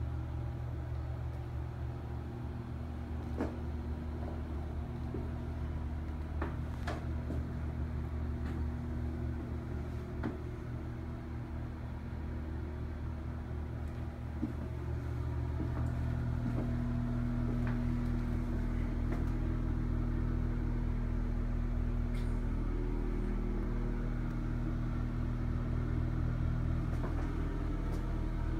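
Steady low machine hum with several held tones, growing a little louder and deeper about halfway through. A few faint clicks are scattered through it.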